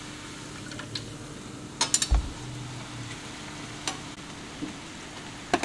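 Potato sev deep-frying in hot oil in a kadhai, with a soft steady sizzle. A metal slotted spoon clinks and scrapes against the pan a few times, loudest about two seconds in.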